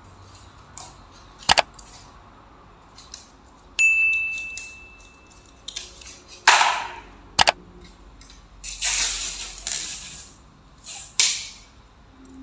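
Sound effects of a subscribe-button overlay: a sharp click, then a bell ding that rings on steadily for about two seconds, and another sharp click. Between and after them come rustling and scraping bursts as plastic trim pieces are handled.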